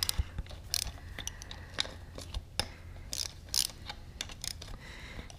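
Socket wrench on the front hub nuts, ratcheting in irregular clicks with short bursts of metal scraping.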